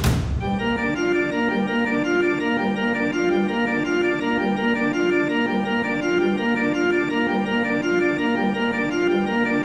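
Electronic background music led by an organ-like keyboard, a steady repeating pattern of sustained chords that starts with a sudden loud hit.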